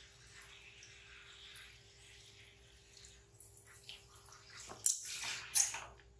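Water being splashed by hand over a wet baby monkey during its bath: faint trickling and dripping, then two loud splashes close together near the end.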